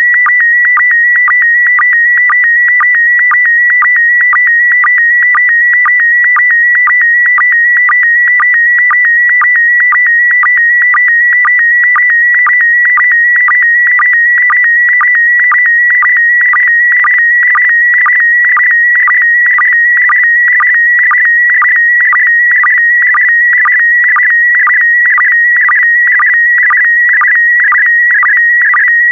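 Slow-scan television signal in PD120 mode: a loud, high, steady warbling tone that carries the picture, broken about twice a second by a brief dip to a lower sync tone that marks the start of each new pair of image lines.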